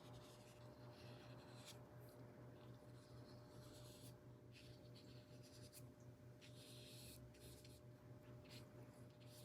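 Faint, scratchy swishes of a watercolor brush stroking across paper, several short strokes at irregular intervals, over a steady low electrical hum.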